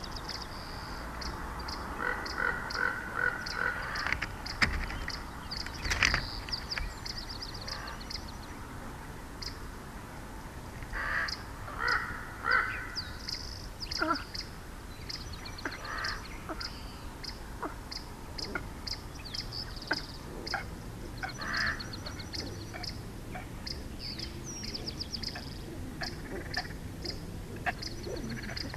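Wild birds calling: short, rapid high chipping trills repeat throughout, and a louder, lower call of a few notes comes three times. Two sharp knocks sound a few seconds in.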